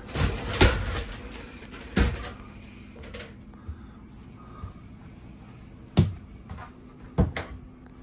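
Sliding glass shower doors in a curved shower surround being slid open and shut, with a few sharp knocks and clacks of the door frames: about half a second in, at two seconds, at six seconds, and twice just after seven seconds.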